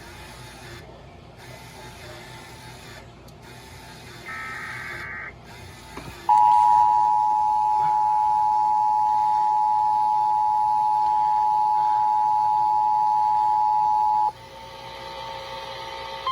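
Emergency Alert System broadcast over a weather radio. Receiver hiss, then a one-second warble of SAME header data, then the EAS two-tone attention signal: a steady dual tone held for about eight seconds that cuts off abruptly. This sequence marks the start of an emergency alert, here a Tornado Warning.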